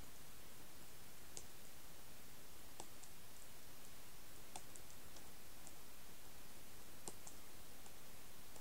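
Steady background hiss with a few faint, sharp clicks at irregular moments.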